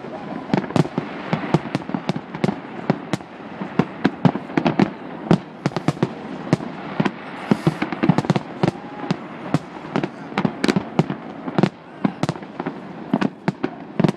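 Dense barrage of aerial firework shells bursting, several sharp bangs a second over a continuous din of further bursts.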